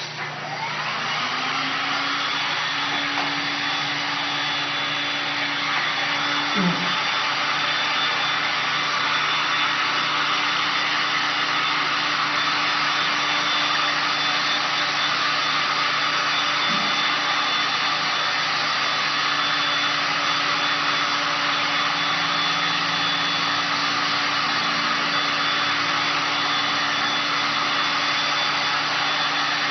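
Hot-air heat gun starting up and then running steadily, a constant blowing rush with a low hum and a thin high whine from its fan motor. A light knock comes about seven seconds in.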